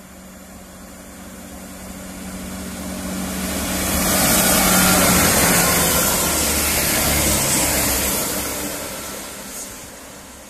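Chiltern Railways diesel multiple unit passing at speed: its engine note and the rush of wheels on rail build as it approaches, are loudest as it goes by about four to eight seconds in, then fade as it draws away.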